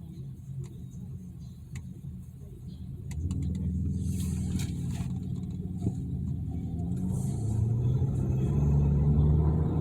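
Harley-Davidson motorcycle's V-twin engine running on its stock exhaust, a low rumble that gets louder about three seconds in and climbs again near the end.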